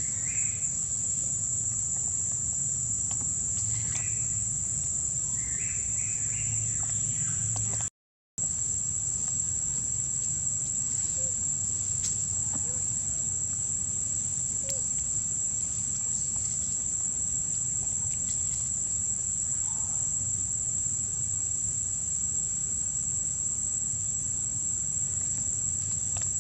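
Continuous high-pitched drone of forest insects, with a few short, faint chirping calls in the first seven seconds. The sound cuts out completely for a moment about eight seconds in.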